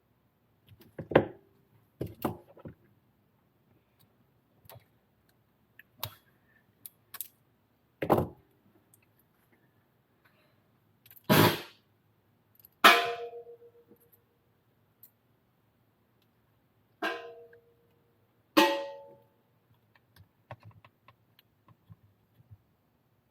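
Irregular knocks and clatters of tools and parts being handled and set down on a workbench, about a dozen over the stretch, a few followed by a short ring.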